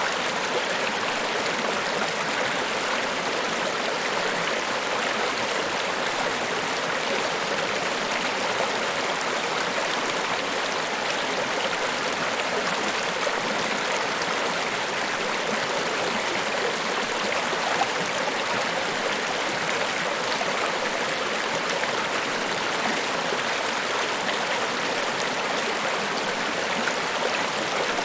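Niagara Falls: a steady, even rush of falling water with no breaks or changes.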